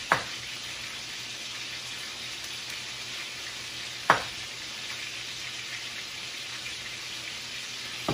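Chef's knife knocking on a wooden cutting board as a red bell pepper is cut around its core: two sharp knocks about four seconds apart, and a fainter one near the end. Under them runs a steady hiss of chicken frying on the stove.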